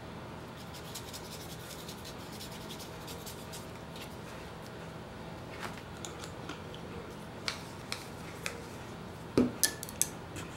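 Paintbrush dabbing and rubbing on paper, with faint small clicks. Near the end, a few sharp knocks as a plastic acrylic paint bottle is handled and set down on the table.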